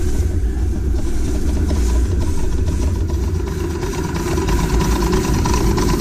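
Ride-on live steam Shay locomotive running along the track: a steady low rumble of the engine and wheels on the rails, with a faint steady tone throughout.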